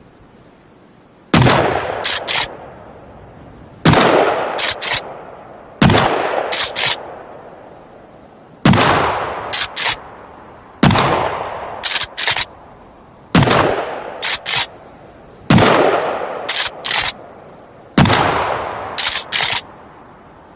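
Shotgun fired eight times, each loud blast trailing off over about a second, and each followed by two quick mechanical clicks of the action being cycled for the next shot.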